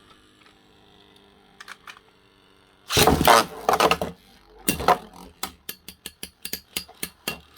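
Spinning metal Beyblade tops: a faint steady whir, then a loud clash about three seconds in and another near five seconds, followed by a rapid, even run of clattering hits, about four to five a second. The hits are Dark Bull's 12-bladed Dark wheel making barrage attacks on its opponent.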